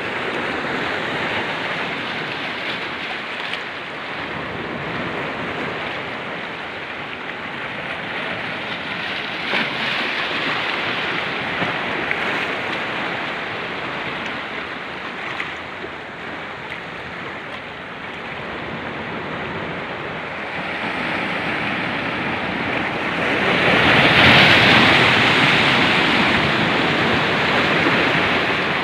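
Sea waves washing and breaking over a rocky shore: a steady rushing surf, swelling louder about three-quarters of the way through as a bigger wave breaks.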